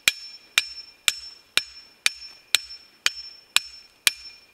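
Hatchet pounding a metal electric-fence ground rod into the ground: sharp metal-on-metal strikes at a steady two a second, about ten in all, each with a brief ringing.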